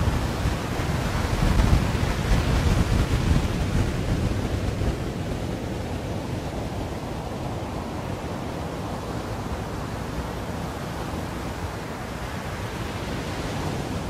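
Sea surf on a beach with wind: a wave swells and breaks in the first few seconds, then settles into a steady wash, with wind buffeting the microphone.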